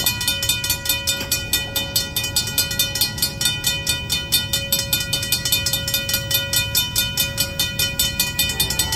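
Freight train passing close by, with a rapid, even clicking of about four a second and steady ringing tones throughout.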